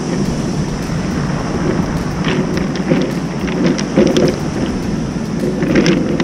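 Steady surf on a pebble beach with wind on the microphone, broken by a few short clacks of pebbles knocking together.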